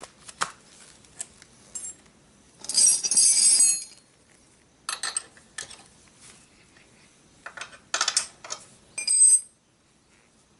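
Metal clinks and rattles of a motorcycle drive chain being handled and fitted at the rear sprocket of a Honda CB750: scattered clicks, a longer rattle about three seconds in, and a few ringing clinks near the end.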